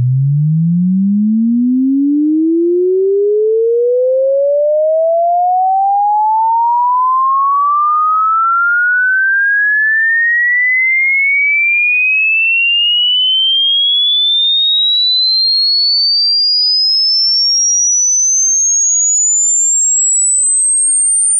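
A pure sine tone gliding steadily and smoothly upward in pitch at an even loudness, from a low hum to a thin, high whistle: a hearing-test frequency sweep, where the point at which a listener stops hearing it marks their hearing age.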